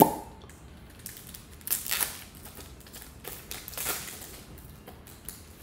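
Pokémon TCG booster pack wrapper popped open with one sharp pop, then torn and crinkled in a few short bursts about two and four seconds in.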